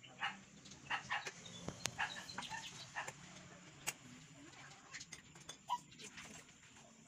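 Light metallic clinks and taps of a screwdriver working on a manual 4x4 transmission's cast case and shift tower. Short clucking animal calls sound in the background.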